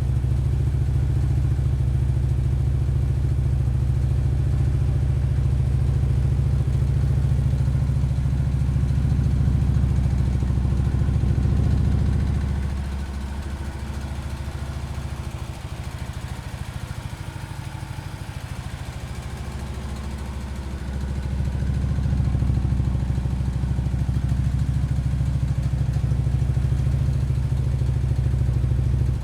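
Harley-Davidson touring bike's V-twin idling steadily through Vance & Hines Monster Oval slip-on mufflers. The sound drops for several seconds in the middle, then comes back.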